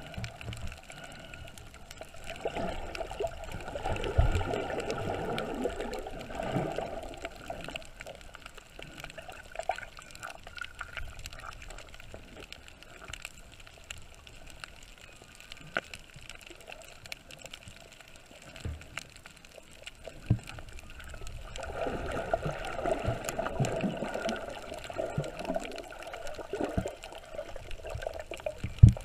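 Muffled water sound heard through an underwater camera: gurgling and sloshing that swells up twice, about two seconds in and again after twenty seconds, over a steady low hiss with faint scattered clicks.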